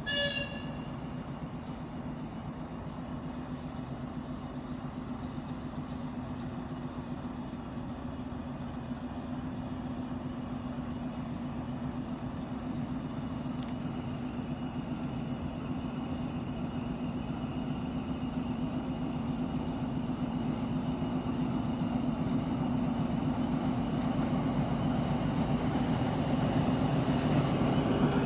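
Diesel engine of a ChME3 diesel-electric shunting locomotive, a six-cylinder ČKD engine, running with a steady low drone that grows slowly louder as the locomotive approaches. A short high toot sounds right at the start.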